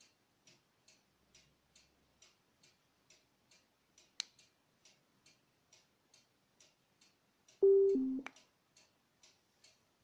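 Small ADO mate3 Bluetooth speaker playing its power-off chime, two short beeps falling in pitch, about eight seconds in. A sharp click comes about four seconds in. Under it runs a faint, steady ticking about two and a half times a second.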